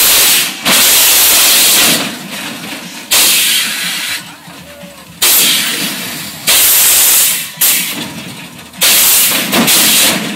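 Air-bag suspension on a bagged Chevy S10 pickup firing and dumping compressed air as the truck hops: a series of loud hissing blasts, each about a second long, coming every second or two.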